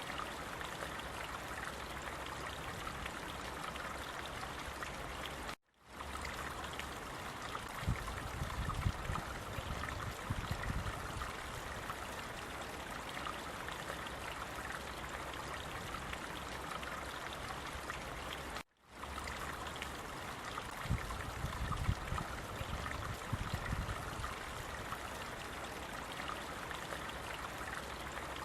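Water running steadily in a stream, an even rushing and trickling. It cuts out briefly twice, about 13 seconds apart, where the recording loops.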